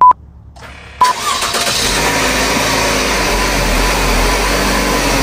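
A loud short electronic beep, then about a second in the 2020 Buick Regal Sportback's engine starts up and settles into a steady idle.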